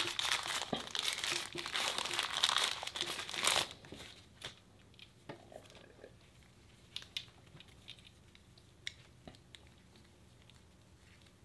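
Plastic packaging bag crinkling as it is opened by hand, for about three and a half seconds, then only faint scattered clicks of the earbuds and packaging being handled.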